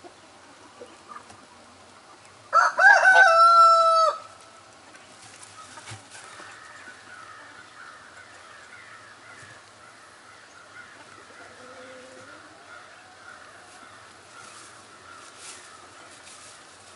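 A rooster crows once, loudly, about two and a half seconds in: a few short notes and then a long held one, lasting about a second and a half. Faint bird calls carry on in the background for the rest of the time.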